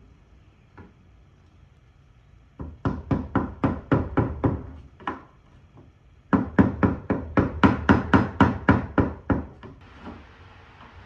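Two quick runs of sharp knocks on wood, about four a second: a shorter run and then a longer, louder one. They come as the back panel of a dresser, held on by many nails and staples, is being knocked loose.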